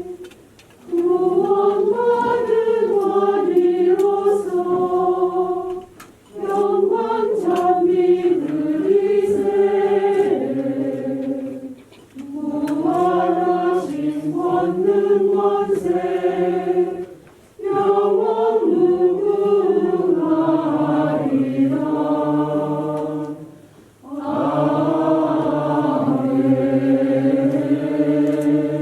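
Choir singing a slow hymn in long held phrases of about five or six seconds each, with a short breath between phrases.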